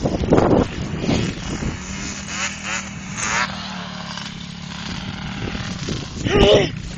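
ATV engine running steadily, with revs wavering up and down in the middle.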